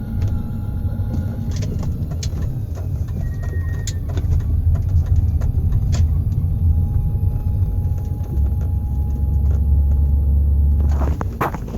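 BMW E31 840Ci on the move: steady low driveline and road rumble with a thin, steady squeaking whine from the propshaft centre bearing, which squeals when it runs dry of grease. The rumble drops away with a few knocks near the end.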